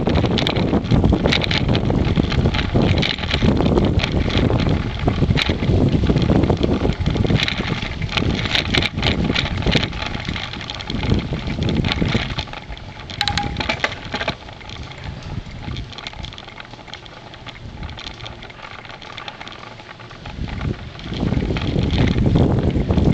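Wind buffeting the microphone of a camera on a moving bicycle, a steady rumbling rush, with frequent sharp rattles and clicks as the bike rides over the path. The rumble eases for several seconds in the second half as the bike slows, and comes back near the end.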